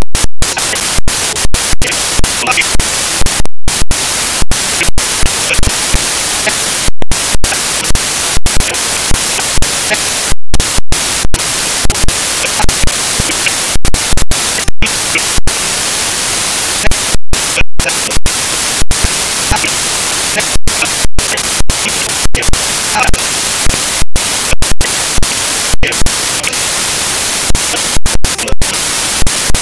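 Loud steady digital static hiss from a corrupted recording, broken about once a second, at irregular intervals, by brief glitches and dropouts.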